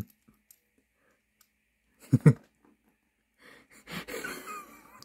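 A short, breathy vocal sound, two quick pulses about two seconds in. Near the end comes soft scratchy handling noise from a plastic Transformers action figure being fitted and posed with both hands.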